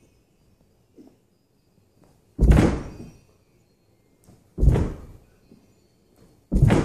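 Three heavy thuds about two seconds apart: a 293-pound man's hands and body landing on a rug-covered floor after each explosive push-up.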